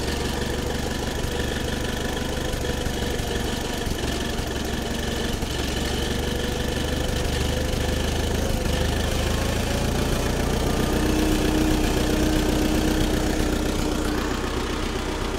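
Gasoline engine of a vintage Allis-Chalmers FP-40 forklift idling steadily, newly started after months unused, while its idle speed is raised at the carburetor. It gets slightly louder past midway, and a steady hum joins it about two-thirds of the way through.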